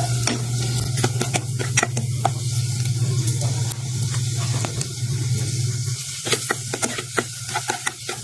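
Butter, garlic and onion sizzling in a pot on low heat, with a spatula scraping and clicking against the pot as the mix is stirred. A low steady hum underneath stops about six seconds in.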